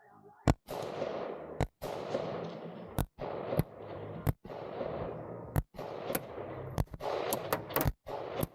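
A string of about ten semi-automatic gunshots fired one after another, unevenly spaced and coming faster near the end, each followed by a trailing echo.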